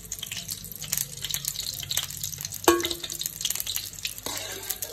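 Cauliflower florets sizzling and crackling in hot oil as they shallow-fry in a kadai, with a single louder knock a little past the middle.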